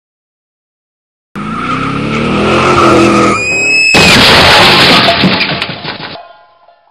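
Car sound effect: a car engine running, a short high tyre squeal about three seconds in, then a loud skid of tyres under sudden braking that cuts off about six seconds in and fades briefly.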